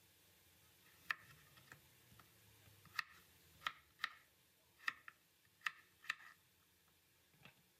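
Chef's knife cutting a peeled potato into cubes on a wooden cutting board: a series of sharp, uneven taps as the blade goes through and strikes the board.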